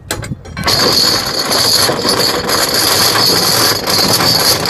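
Anchor chain running out over the ship's windlass as the anchor is let go: a few clanks, then a loud, continuous metallic rattle that cuts off suddenly near the end.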